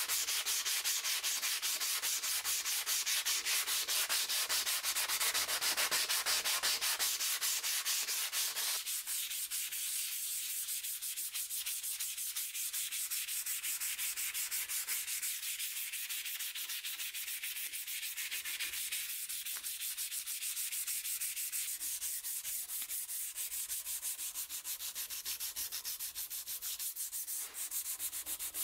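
Steel meat-cleaver blade being hand-sanded with quick back-and-forth strokes, a steady rapid scrubbing. About nine seconds in the sound turns thinner and higher as the sanding goes on with a flat pad.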